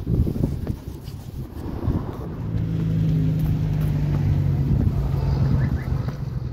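Motor vehicle engine running, with an uneven rumble at first and then a steady low hum that grows louder about two seconds in.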